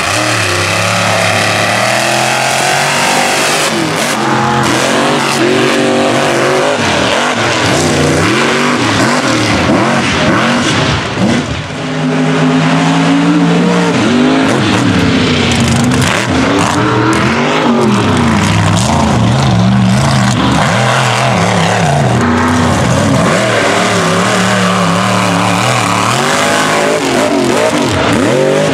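Mega truck engines running wide open, their pitch climbing and falling again and again as the trucks race over the dirt, with a brief drop in level about eleven seconds in.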